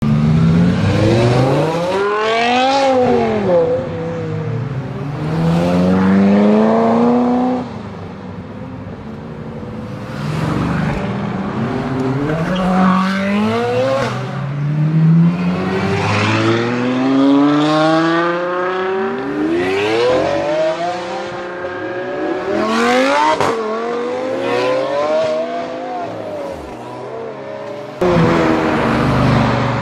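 High-performance car engines revving hard and accelerating past, their pitch climbing again and again and dropping back at each gear change, with a few sharp cracks from the exhaust. The sound changes abruptly to another car about two seconds before the end.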